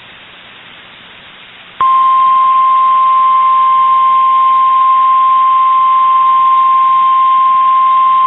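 Emergency alert attention tone: a single loud, steady tone near 1 kHz that starts abruptly about two seconds in, after faint radio hiss. This is the NOAA Weather Radio 1050 Hz warning alarm tone that signals an alert announcement is about to follow.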